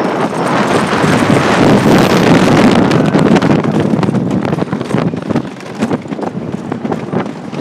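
Wind buffeting the microphone over the rattle and clatter of the Coney Island Cyclone's wooden roller coaster train speeding down a drop. The rush is loudest in the first three seconds, then eases into quicker, sharper clacking from the train on the track.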